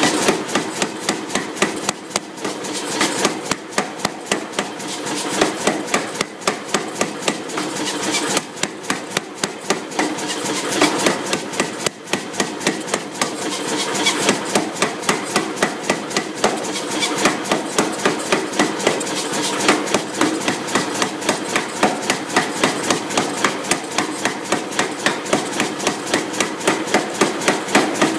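Power hammer with drawing dies striking a red-hot bar of mild steel in a rapid, even run of blows, several a second, drawing out a taper. There is a steady noise between the blows, and the blows ease off briefly a few times.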